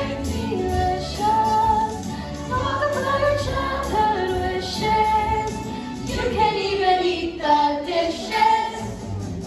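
Young voices singing over accompanying music, with steady low bass notes underneath.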